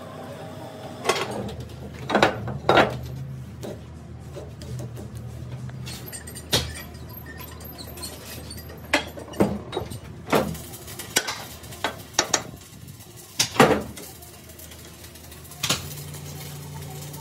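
Irregular clinks and clanks of steel tools and parts, about a dozen sharp knocks at uneven intervals, over a low hum that comes and goes.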